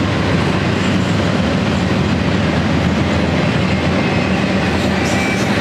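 Double-stack intermodal container well cars rolling past: a steady rumble and clatter of steel wheels on the rails, with a brief high wheel squeal near the end.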